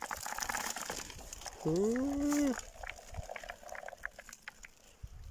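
A man's short drawn-out vocal sound, an 'ooh'-like call that rises in pitch, holds and falls, about two seconds in, over light scattered rustling and clicking.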